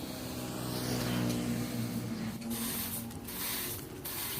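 Sawmill machinery running with a steady low motor hum, and a saw rasping through wood in bursts of hiss from about halfway in.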